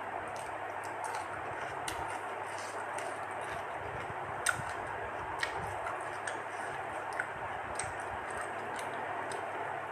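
Eating sounds: irregular small wet clicks and smacks of chewing, over a steady background hiss.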